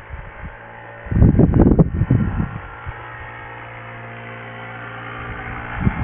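Gusting snowstorm wind buffets the microphone in a loud rumble for about a second and a half, starting about a second in. Under it runs the steady low hum of an ATV's engine.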